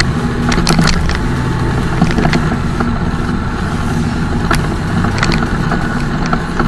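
Cummins M11 inline-six diesel in a Freightliner truck running steadily under load while pulling a 58,000-pound steel coil, with scattered sharp clicks over the engine sound.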